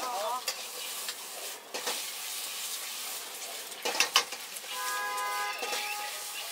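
Food sizzling in a hot wok as it is stir-fried, with a metal ladle clanking and scraping against the wok a few times, most sharply about four seconds in.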